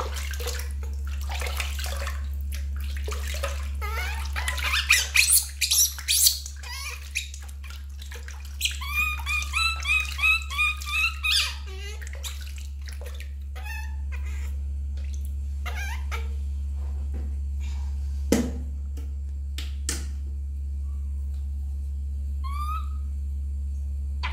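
Water splashing and pouring in a metal basin as a baby monkey is bathed, then about nine seconds in a quick run of short squeaking calls from the baby monkey lasting about three seconds. Scattered drips and small clicks follow, over a low steady hum.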